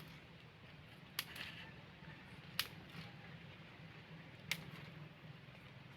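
Three faint, sharp clicks spaced a second or two apart over a low, steady background hum.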